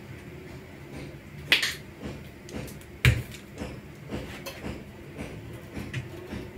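Kitchen handling sounds from a plastic sauce squeeze bottle and sandwich-making: a short sharp sputter about a second and a half in, then a louder knock about three seconds in as the bottle is set down, followed by light clicks and rustles. A low steady hum runs underneath.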